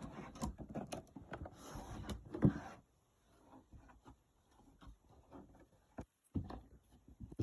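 A cardboard product box being handled, with a rapid run of taps, scrapes and knocks and a brief rustle of packaging in the first three seconds, then sparse, quieter knocks.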